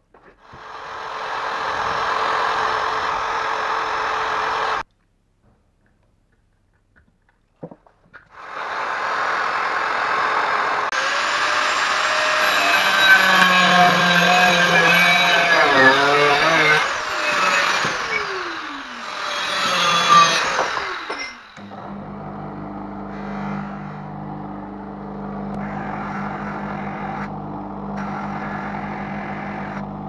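A heat gun blowing steadily for a few seconds, then cut off. Next an angle grinder running loud against a cast aluminium plaque, its pitch falling twice as it winds down. Then a bench grinder's motor humming steadily.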